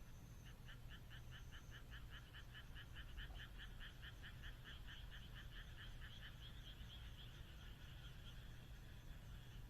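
Frog calling in a fast, even series of croaks, about five a second, faint, with a short break around six seconds in before the croaks resume, over a steady low hum.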